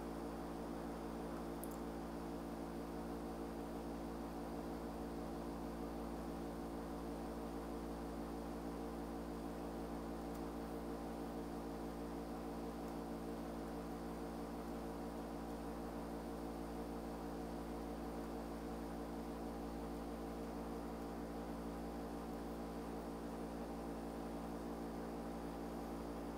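Steady electrical hum with a faint hiss, unchanging, with no other sound over it.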